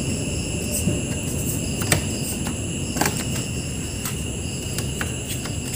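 Faint clicks and knocks of a TV's plastic frame and support guide being handled and refitted against the metal panel chassis. A steady high-pitched drone and a low rumble run underneath.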